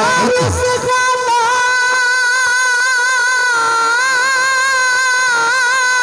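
A man singing a Punjabi naat, holding one long high note through a microphone, its pitch wavering slightly.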